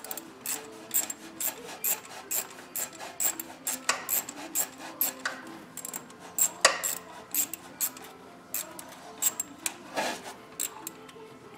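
Hand ratchet clicking in quick strokes, about three or four clicks a second, as the 10 mm bolt on a thermostat housing is run down snug.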